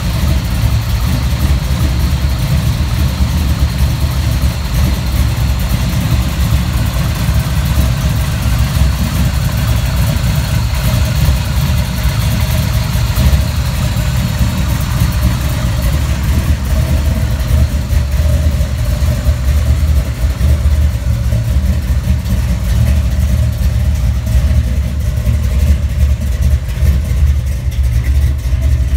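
Supercharged Dodge Dakota race truck's engine idling steadily and loudly.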